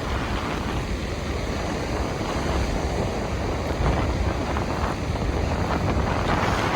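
Strong wind buffeting the microphone, a steady low rush, with ocean surf underneath.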